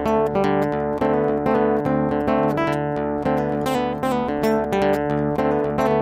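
Background music: acoustic guitar picking a steady run of plucked notes.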